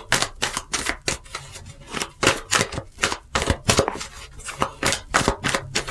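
A tarot deck being shuffled overhand, cards dropped and slapped from one hand into the other in quick, irregular clicks, several a second.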